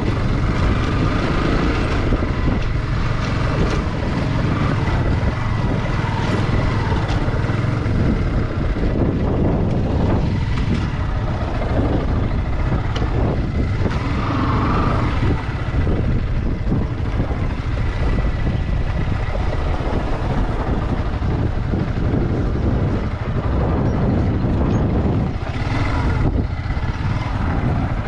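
Yamaha R15 V2 motorcycle's single-cylinder engine running steadily at low revs.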